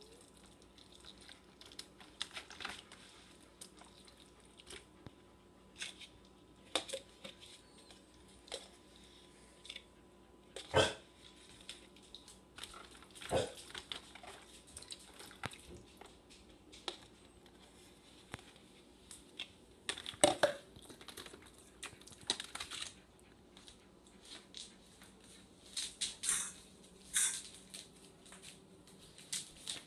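Hands squishing and mixing a soft food mixture in a thin clear plastic container, the plastic crinkling, scraping and knocking off and on. A few sharper knocks stand out, about eleven, thirteen and twenty seconds in, over a faint steady hum.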